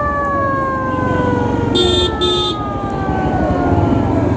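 A vehicle siren sounds with a slowly falling pitch over motorcycle engine and traffic noise. Two short horn beeps come about two seconds in.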